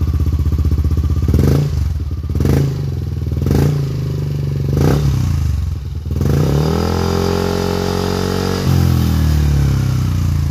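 Yamaha NMAX v2 scooter's 155 cc single-cylinder engine breathing through an aftermarket JVT exhaust pipe, idling with four short throttle blips about a second apart, then a longer rev held for about two seconds before it drops back to idle.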